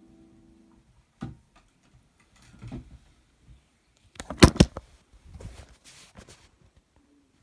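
The last chord on an electronic keyboard dies away in the first second, followed by knocks, clicks and rustling as the recording phone or camera is handled and picked up, loudest in a cluster of sharp clicks about four and a half seconds in.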